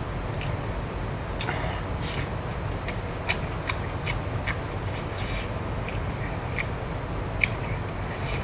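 Close-up eating sounds: a man chewing with irregular wet smacks and sharp mouth clicks, a few of them louder, over a steady low hum.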